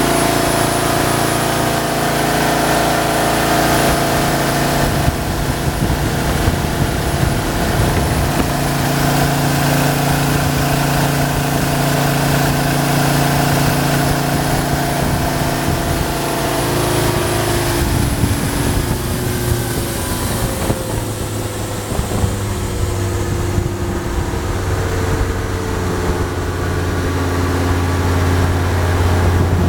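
Turbo diesel engine of a jet boat running under way, with the rush of the water jet and spray over it. About two-thirds of the way through the engine note shifts down and the water rush fades, as the boat eases off to a slower cruise, leaving a deeper engine drone.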